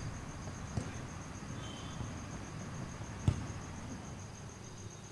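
An insect trilling steadily in a high, evenly pulsing tone. A faint dull thump comes near the start and a louder one about three seconds in.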